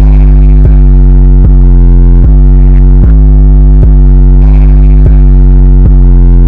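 Loud, heavily distorted bass-boosted electronic music: a deep sub-bass under synthesizer notes that strike about every 0.8 seconds.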